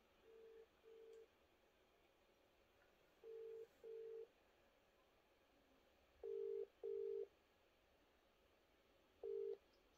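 Ringback tone of an outgoing WhatsApp call, played from a phone's speaker: low double rings repeating about every three seconds, growing louder over the first three pairs, with a single ring near the end.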